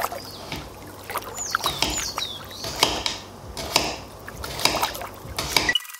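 Kitchen knife slicing thin cuts into a raw potato, with a crisp crunch through the flesh and a knock at the bottom of each stroke about once a second. Two short, high falling squeaks come about a second and a half in.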